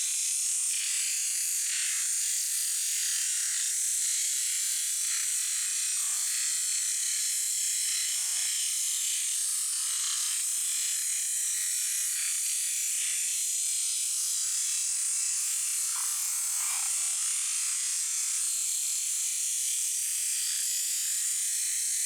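High-pressure washer jet spraying: a steady, high-pitched hiss that holds at one level, with a few brief lower-pitched sounds about six, eight and sixteen seconds in.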